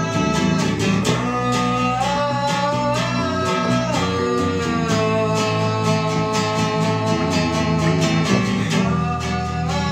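Instrumental music led by a guitar playing a melody with sliding, bending notes over a bass line and a steady beat.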